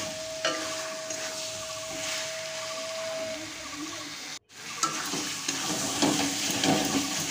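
Metal spatula stirring and scraping mushroom and potato pieces around a metal kadai as they fry slowly in spiced masala and oil, with a light sizzle. The sound cuts out briefly about four and a half seconds in.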